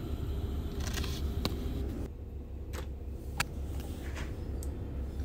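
A few light clicks and knocks of metal kitchen utensils being handled on the counter, over a steady low hum.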